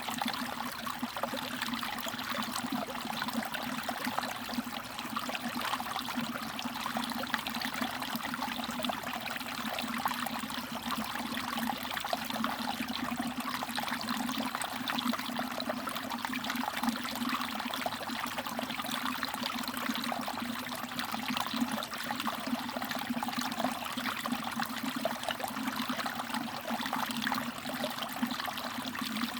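Mountain valley stream trickling and babbling over rocks, a steady flow with fine splashing and dripping.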